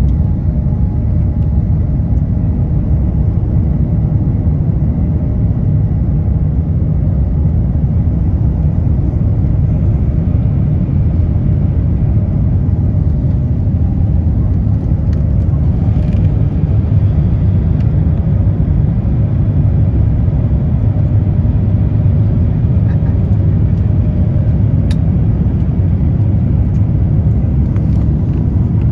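Cabin noise of an Airbus A350 climbing after takeoff: a loud, steady low roar from its Rolls-Royce Trent XWB engines and the airflow, heard inside the cabin at a window seat.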